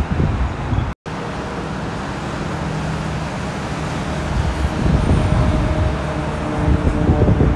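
Freeway traffic passing below: a steady rush of tyre and engine noise, with wind buffeting the microphone in the first second. The sound cuts out briefly about a second in, and an engine hum grows louder near the end.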